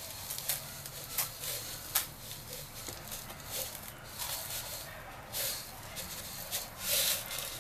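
Coarse salt poured from a plastic pot into a plastic tub: a hiss of falling grains with scattered ticks, rising to louder rushes twice in the second half.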